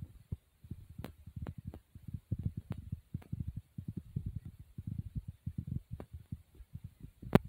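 Low, irregular rumbling and thumping on a handheld phone's microphone, from wind buffeting and handling, with a few sharp clicks.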